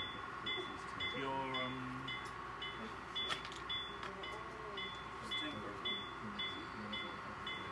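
Diesel locomotive bell sound from an HO scale model railroad, ringing steadily at about three strikes a second, with operators' chatter in the background.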